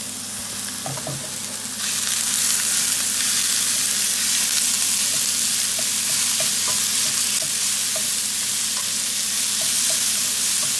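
Minced pork and beef sizzling in a hot frying pan with garlic and onion, stirred and broken up with a wooden spatula. The sizzle gets louder about two seconds in and then stays steady, with small scattered ticks.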